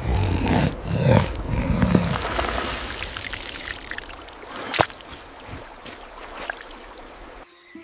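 Low animal growling for about the first two seconds, then water trickling and dripping into a shallow seep, with one sharp knock about five seconds in.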